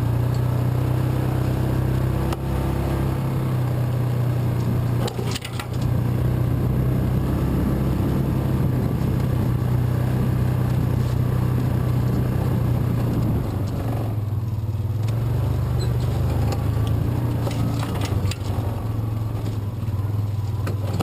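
Yamaha Rhino side-by-side's engine running steadily as it drives over a rough trail, with a few sharp knocks about five seconds in.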